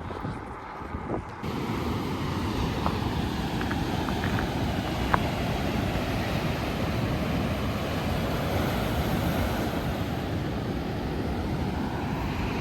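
Steady rushing outdoor noise of wind on the microphone mixed with ocean surf. It starts abruptly about a second and a half in, after a quieter moment, with a few faint clicks.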